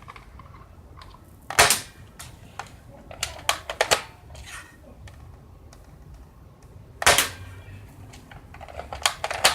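Airsoft gun firing single shots several seconds apart, sharp snaps with the loudest about one and a half and seven seconds in and lighter clicks between, a short run of clicks near the end; the shooter runs out of BBs just afterward.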